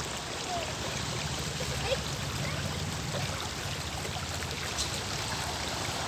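Steady hiss of falling water, as from rain or water pouring onto the ground and foliage, even in level throughout.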